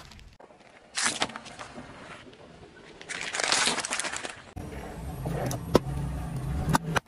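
A car tyre rolling over and crushing small objects in several short cuts: crackling and crunching of plastic and packaging. Near the end comes a drink can crushed under the tyre, with a sharp pop as it bursts over a low engine hum.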